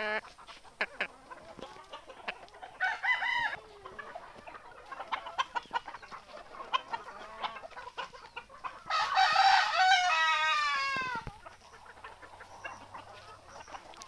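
A flock of desi chickens clucking. About nine seconds in, a rooster crows once, a long call lasting about two seconds with a falling end, which is the loudest sound.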